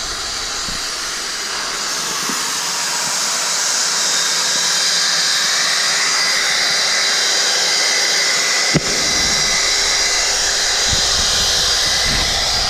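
Handheld polisher running steadily with a hiss and a thin high whine as a polishing pad works a granite surface. About two-thirds of the way through there is a sharp click, and after it a low rumble joins the sound.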